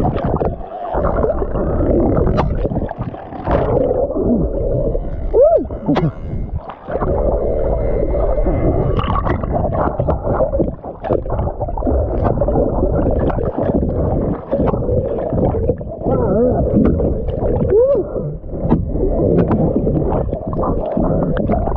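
Water sloshing against a kayak, with wind buffeting the camera microphone. Frequent knocks and clicks run through it, and a few brief rising-and-falling squeaks come through about five and a half, six and eighteen seconds in.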